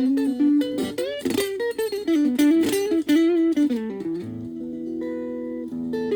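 Les Paul-type electric guitar played through a VOX Soundbox Mini amp: a quick run of single notes with string bends and vibrato, then a held chord left ringing from about two-thirds of the way in.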